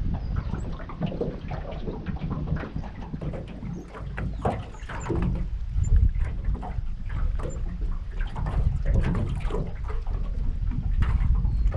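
Wind buffeting the microphone in a heavy low rumble, with irregular short crackles over it.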